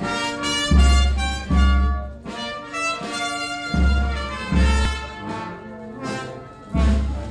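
Brass band playing held chords, with deep bass notes landing in pairs about every three seconds.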